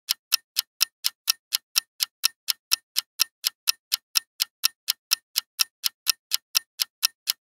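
Clock-style ticking sound effect marking a countdown timer, with short, even ticks at about four a second.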